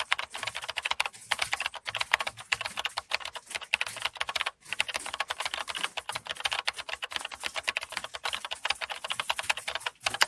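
Fast typing on computer keyboards: a dense, continuous clatter of keystrokes that breaks off briefly about four and a half seconds in.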